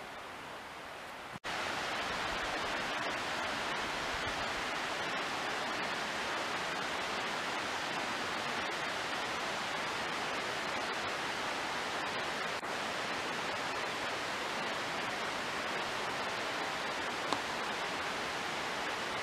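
Steady rushing background noise that jumps louder after an abrupt cut about a second and a half in, then holds even.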